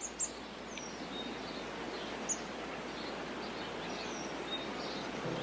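Outdoor ambience: a steady hiss of background noise with a few short, high, falling bird chirps.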